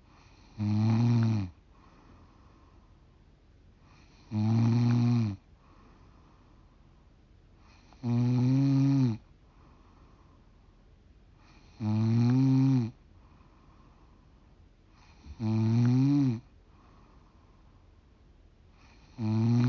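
A 45-year-old woman snoring in her sleep: loud, regular snores about a second long, roughly every four seconds, with quiet breathing in between. There are six snores, the last beginning near the end.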